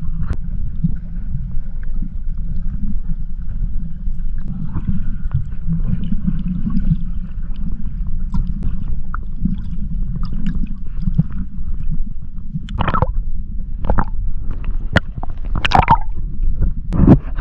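Underwater water noise picked up by a submerged camera: a steady, muffled low rumble and gurgle of moving water, with a few short sharp splashes or clicks near the end.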